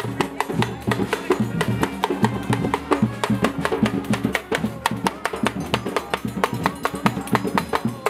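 Live bumba-meu-boi street percussion: hand-played pandeiros and drums in a fast, steady beat, with handclaps and voices singing along.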